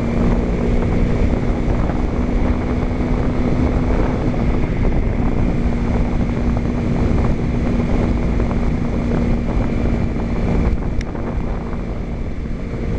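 Steady wind rush on a helmet-mounted camera over the even drone of a Kawasaki Ninja 250's parallel-twin engine, cruising at a constant speed. A single light click comes near the end, where the engine note eases briefly.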